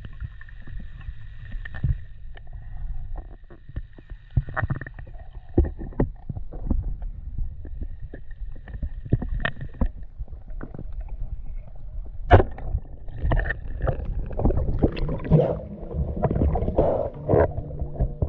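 Muffled underwater sound picked up by a camera in a waterproof housing: a low rumble of moving water with scattered clicks and knocks. The sound grows louder and busier in the last few seconds.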